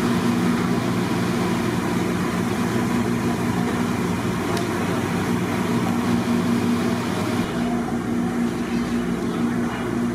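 A steady machine drone: a low hum under a constant hiss. The hiss thins out about seven and a half seconds in.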